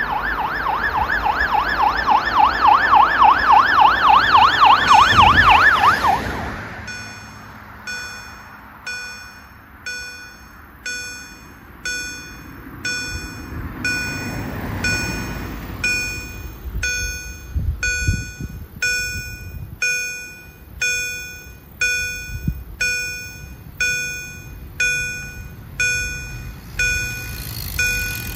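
Ambulance siren in a fast yelp, its pitch sweeping rapidly up and down, growing louder and then dropping away sharply about six seconds in. Then the level crossing's electronic warning bell, an EHL-S10, starts dinging steadily, about one ringing strike every 0.8 seconds, as the crossing closes.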